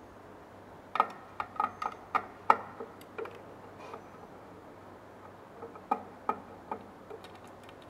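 Sharp metallic clicks and taps as small metal parts, the print-head adapter boards and their screws, are handled against a UV printer's print-head carriage. There is a quick run of clicks from about a second in, then a few more near the end.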